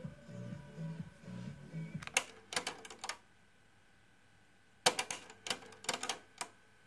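Radio music playing on a Panasonic RD95 car audio unit stops about two seconds in, followed by two clusters of sharp mechanical clicks with a short silent pause between them, as the unit's controls are operated.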